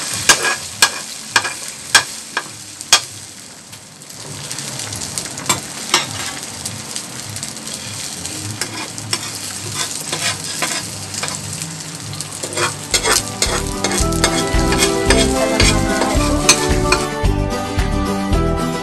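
Beaten egg and sliced okra sizzling in hot oil in a frying pan, with a metal spatula clicking and scraping against the pan several times in the first few seconds. Background music comes in about two-thirds of the way through.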